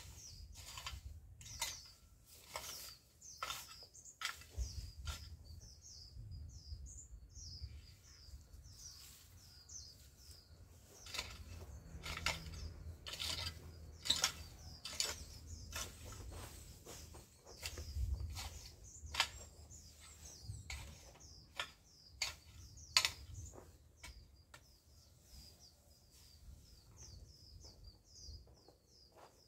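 Small birds chirping over and over in short high notes, over irregular knocks and scrapes of a long-handled hoe chopping at weeds and soil.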